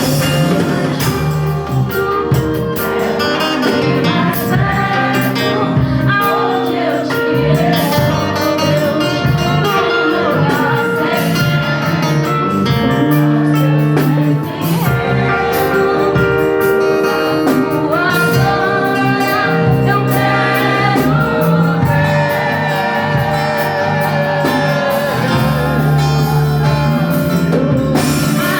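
Music with singing over guitar and drums, with a steady beat.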